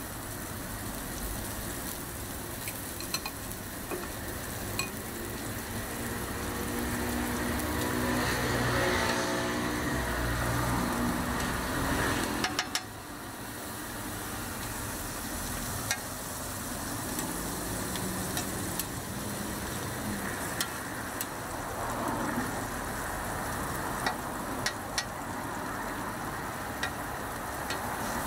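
Cabbage-and-egg toast patties sizzling in oil on a flat griddle, with occasional sharp clicks of a metal spatula against the griddle. A humming tone swells for a few seconds before the sound drops suddenly about halfway through.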